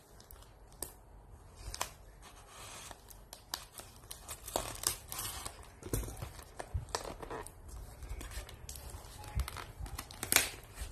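Clear plastic packing tape being peeled and torn off a cardboard package, with irregular ripping and crinkling as the tape and box are handled. A sharper, louder rip comes near the end.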